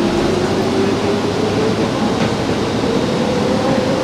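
Transit bus heard from inside the cabin, its engine and drivetrain running under a steady rumble, with a whine that rises slowly in pitch as the bus gathers speed.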